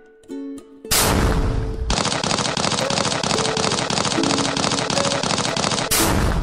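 The last plucked ukulele notes, then about a second in a loud burst, followed by fast, dense crackling like a string of firecrackers going off for about four seconds, and another loud burst near the end: New Year's Eve fireworks.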